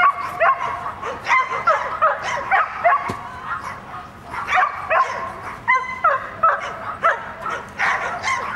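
A dog barking repeatedly in quick, short, high yaps, several a second, excited barking during an agility run.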